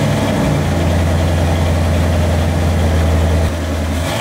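1989 Mercury Grand Marquis 5.0 L V8 idling through a freshly built dual exhaust with Flowmaster Super 10 mufflers: a steady, deep drone that eases off a little about three and a half seconds in.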